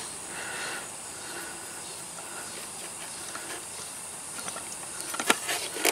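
Steady hiss with faint handling noise as a steel header bolt is turned by hand into the cylinder head's bolt hole, with a couple of sharp metallic clicks near the end.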